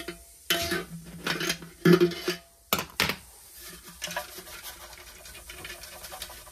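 Wet tissue paper being pulled out of a Honda generator's metal fuel tank: bursts of scratching and rubbing against the metal. Two sharp knocks on the tank come about three seconds in, followed by quieter scraping.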